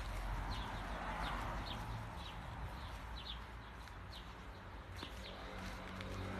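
Small birds chirping now and then over a steady outdoor hiss and low rumble. Low music notes come in about five seconds in.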